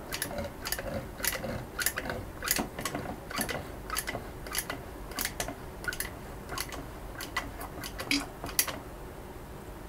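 A plastic glitter shaker being tapped to empty it into a plastic bottle: sharp clicks, about two a second, that stop about a second before the end.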